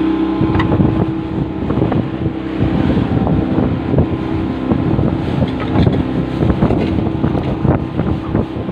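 Small fishing boat's engine running steadily under way, with wind buffeting the microphone and irregular knocks.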